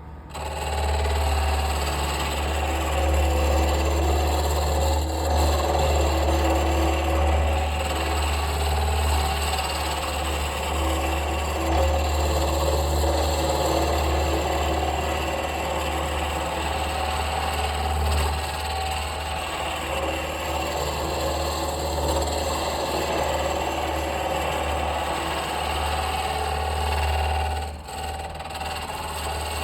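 Wood lathe running with a gouge cutting into a spinning wooden blank: a steady low motor hum under a loud, continuous scraping of the chisel shaving the still partly flat stock down toward a cylinder. The cut eases off briefly near the end.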